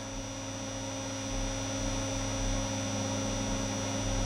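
Steady electrical hum and buzz from a bench power supply running a car audio amplifier, several steady tones, low and high, becoming slightly louder about a second and a half in. The buzz comes from the supply and does not pass through the amplifier.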